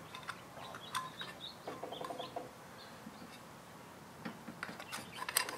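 Faint clicks and light handling noise as the control board is worked loose from its connectors and lifted out of a Tesla large drive unit's inverter, with a few short high chirps mixed in.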